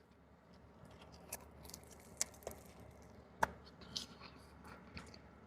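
Faint chewing of a mouthful of shrimp burrito: soft, scattered mouth clicks and smacks.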